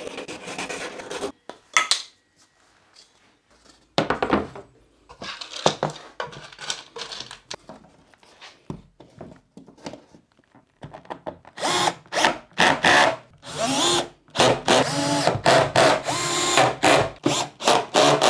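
A cordless drill-driver driving screws in a run of short bursts, each one spinning up in pitch, from about twelve seconds on. Before that, a hand saw cuts wood briefly at the start, followed by scattered knocks and handling sounds.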